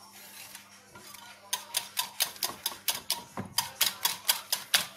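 Wire whisk beating eggs in a ceramic bowl, its wires clicking against the bowl's side about five times a second. The strokes pause for roughly the first second and a half, then pick up again.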